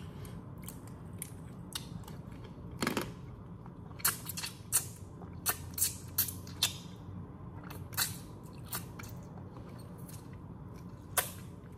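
Boiled crawfish shells cracking and snapping as they are peeled and eaten: scattered sharp clicks and cracks at irregular intervals, thickest in the middle of the stretch, with some chewing.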